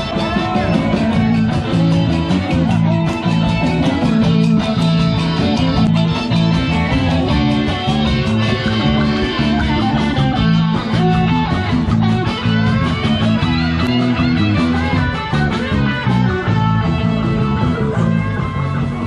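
Music led by guitar, with bass underneath.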